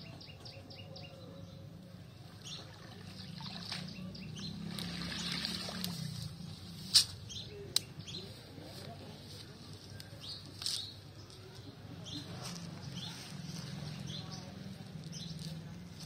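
Wet cast net being hauled out of the water, water streaming and splashing off the mesh, with a few sharp clicks about seven seconds in. Birds chirp in the background.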